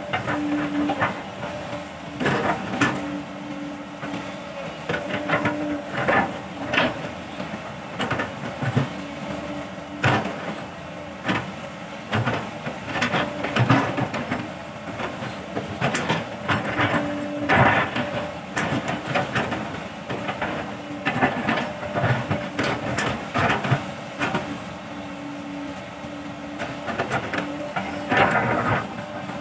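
Sumitomo hydraulic excavator digging: the diesel engine runs under load with a steady hydraulic whine that comes and goes, over repeated clanks, knocks and scrapes as the bucket bites into and lifts the hillside soil.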